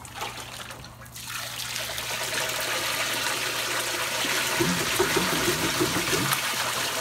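Runny clay slip, thinned with extra water, poured from a metal bucket through a coarse sieve and doubled window screen: a steady liquid pouring sound that starts about a second in and grows.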